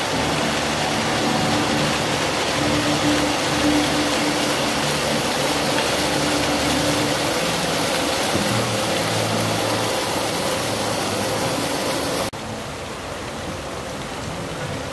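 Fountain jets splashing steadily into a pond, a full rushing hiss of falling water. About twelve seconds in the sound drops suddenly to a quieter splashing.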